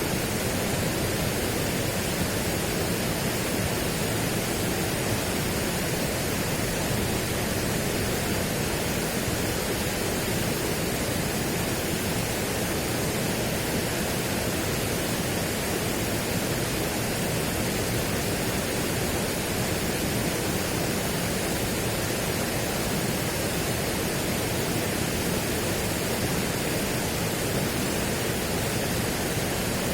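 Steady, unchanging rushing noise spread evenly from low to high pitches, with no separate sounds in it.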